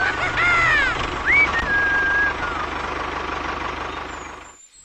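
Tractor engine sound effect running steadily, with a few whistling pitch glides over it in the first second and a half, then fading out near the end.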